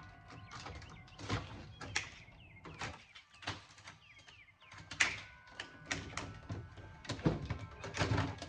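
Irregular clicks, knocks and light clanks of an audio equalizer's metal chassis and parts being handled and pried apart by hand, with a few sharper knocks and faint metallic ringing.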